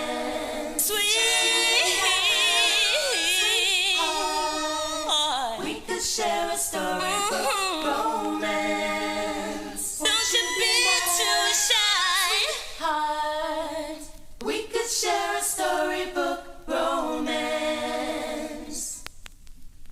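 Several female voices singing in harmony, unaccompanied, with wavering vibrato on held notes. The singing thins out and fades near the end.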